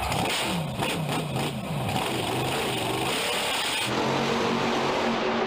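Max-D monster truck's supercharged V8 engine revving up and down in quick rising and falling sweeps. About four seconds in it changes to a steadier, even drone.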